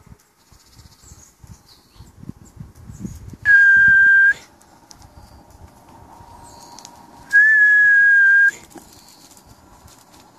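Two long, steady whistle blasts at one high pitch. The first lasts just under a second, and the second, a few seconds later, is a little longer.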